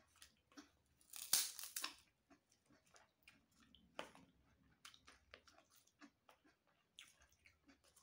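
Krupuk crackers crunching and being chewed, a scatter of short crackles and clicks, with a louder crackling burst about a second in.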